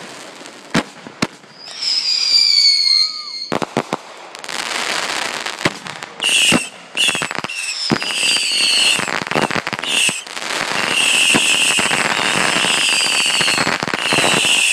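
Consumer fireworks going off: two sharp bangs, then whistles falling in pitch, then a long run of dense crackling and popping with shrill whistles over it.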